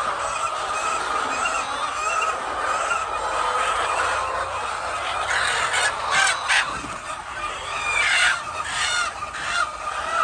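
A flock of chickens making a steady din of clucking and calling, with louder calls standing out about halfway through and again near the end.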